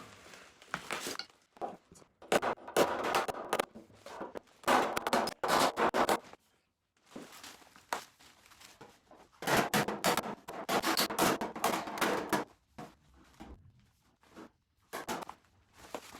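Body hammer tapping out a dent in a sheet-metal car quarter panel, struck from underneath. The blows come in rapid runs with short pauses between them.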